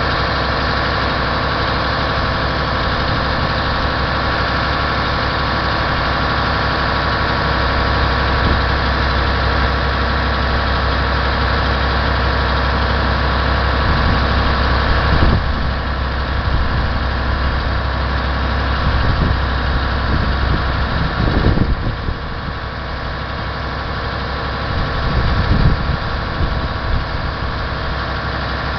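Mercedes-Benz Actros 3236 truck's diesel engine running steadily at idle, with a few brief surges in level around the middle and near the end.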